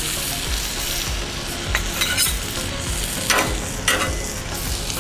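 Ribeye steak sizzling on the hot steel top of a Blackstone griddle, with metal spatulas scraping and tapping against the plate a few times as the steak is turned.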